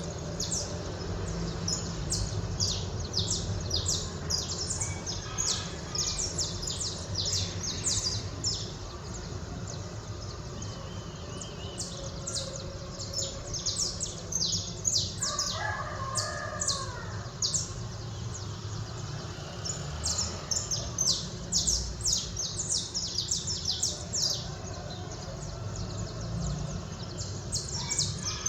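Small birds chirping in quick, high, repeated notes, thinning out for a while mid-way, with a rooster crowing once about halfway through. A low steady rumble runs underneath.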